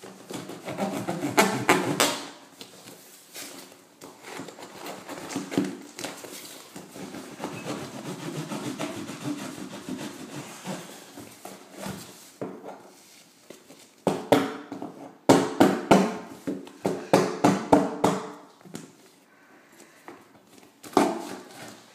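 Knife stabbing and cutting into a heavily taped package, with irregular scraping, rubbing and knocks as the tape and packaging are worked open, busiest in a run of sharp strokes in the second half.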